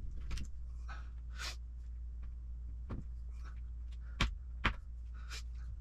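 Sharp clicks and light handling noises of small plastic ball cups being trimmed to size and set down on a work mat, the two loudest snaps close together about four seconds in, over a steady low hum.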